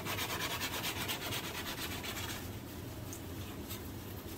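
Palette knife scraping acrylic paint across a stretched canvas in quick, repeated rasping strokes, easing off briefly past the middle and picking up again near the end.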